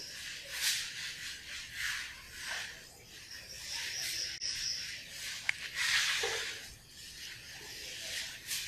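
Blackboard duster wiping chalk writing off a chalkboard in a series of irregular rubbing strokes.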